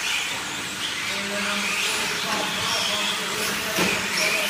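Electric motors of 1/10-scale 4x4 RC short course trucks whining as they race, several overlapping whines rising and falling in pitch with the throttle.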